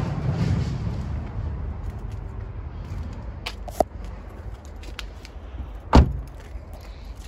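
Hyundai Ioniq rear door shut with a single loud thump about six seconds in. Earlier there is a low rumble of handling or wind noise and a sharp click just before four seconds.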